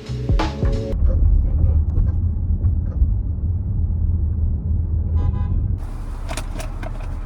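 Steady low road rumble of a car heard from inside the cabin, with a short car horn toot about five seconds in. Near the end the rumble thins and a few light clicks sound.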